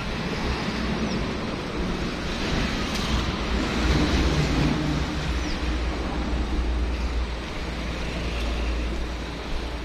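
A motorcycle engine passing close by, loudest a few seconds in, over a steady low rumble of wind on the microphone.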